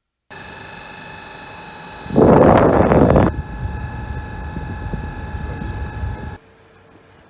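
Air conditioner running with a steady motor hum. About two seconds in comes a loud, rough noise lasting about a second, then an uneven rumble with irregular knocks, all cutting off abruptly near the end.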